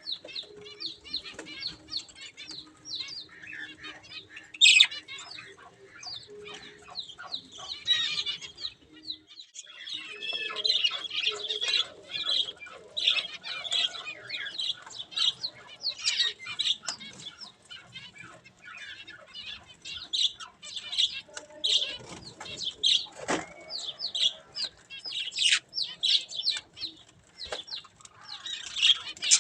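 A flock of budgerigars chattering and warbling, with dense overlapping chirps that keep going throughout.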